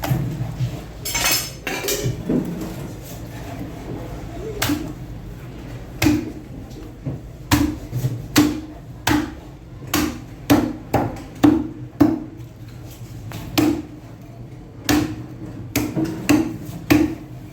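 A blade chopping snapper on a cutting block: a series of sharp chops with a dull thud, about one or two a second for most of the stretch.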